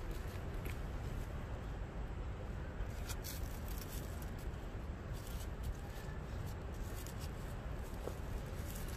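Steady wind rumbling on the microphone, with a few faint crackles from paper burning as it is held to light charcoal on a grill.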